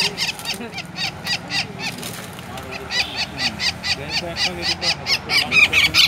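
Red-backed flameback woodpecker, held in the hand and tangled in string, giving a rapid series of harsh, repeated calls at about five a second: the distress calls of a trapped, handled bird. The calls weaken a second or two in and come back louder from about three seconds in, over faint low voices.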